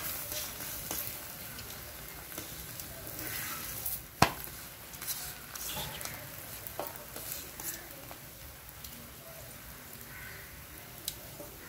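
Parotta frying in butter on a hot iron tawa: a faint steady sizzle with scattered small crackles, and one sharp tap about four seconds in.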